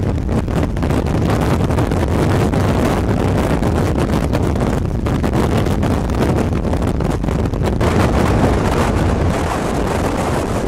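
Wind buffeting the microphone of a moving vehicle, over a steady rumble of engine and road noise.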